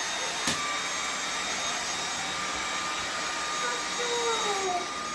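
Dyson vacuum cleaner running steadily, a noisy rush with a high steady motor whine, with a click about half a second in. Near the end a short falling vocal sound rises over it.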